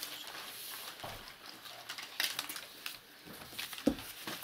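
Handling noise at a table: scattered light knocks and rustles of paper and a book, with one sharp thump near the end.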